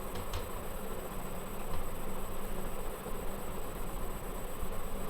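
Steady background hiss with a low hum underneath, and two faint clicks just after the start.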